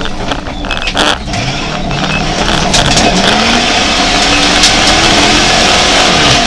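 Jeep Grand Cherokee rally car heard from inside the cabin, its engine revving up under hard acceleration and then held at high revs, with road and tyre noise rising alongside. There is a sharp knock about a second in.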